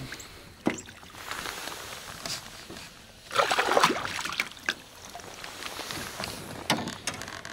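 Hooked largemouth bass thrashing at the surface beside the boat, water sloshing, with a loud burst of splashing about three and a half seconds in as the fish is grabbed. Sharp knocks sound once near the start and again near the end.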